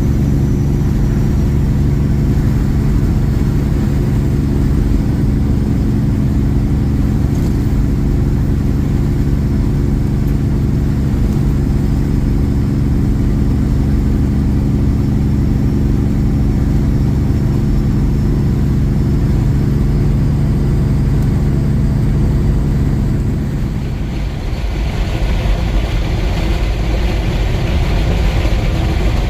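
Semi truck's diesel engine running steadily at highway speed, with road noise. Near the end the steady engine hum drops away and a hissing tyre and road noise takes over.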